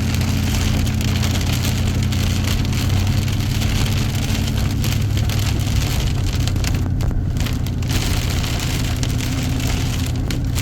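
Car driving in rain, heard from inside the cabin: a steady engine and road hum under the constant noise of rain on the car.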